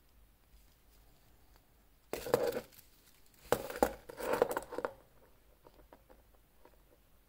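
Handling noise as a white cotton-gloved hand turns a steel-bracelet wristwatch: two bursts of fabric rubbing and rustling, about two seconds in and again from about three and a half seconds in, with a few sharp clicks in them and faint small clicks afterwards.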